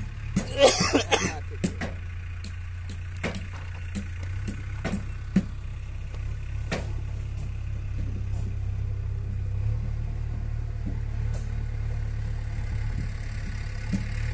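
A steady low engine hum, with scattered clicks and a short rustling burst about half a second in.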